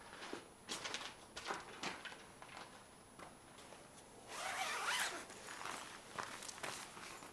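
A zipper on backpacking gear being pulled in a series of short strokes, with one longer, louder pull about four and a half seconds in.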